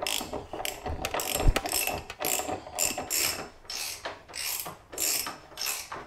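Hand ratchet wrench clicking in a run of short strokes, about two a second, as it runs a motorcycle's front axle home through the fork, with one dull knock about one and a half seconds in.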